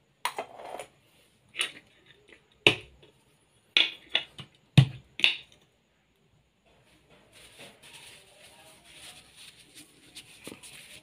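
A run of about eight sharp clicks and clinks as small metal tools are handled and set down on a tiled floor, the loudest about five seconds in. A faint steady hiss follows for the last few seconds.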